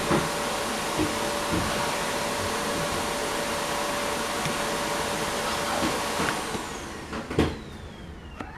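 A small electric motor running steadily with a whine, then switched off about six and a half seconds in and winding down, its pitch falling; a knock follows soon after.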